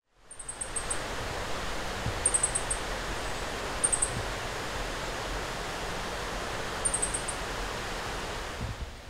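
Rural outdoor ambience: a steady rushing hiss, with four short, high, rapid trills scattered through it.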